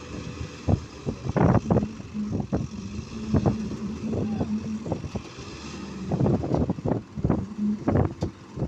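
Tractor diesel engines running under load as they try to pull a combine harvester stuck in mud, with a steady engine hum that comes and goes. Irregular loud thumps run over it throughout.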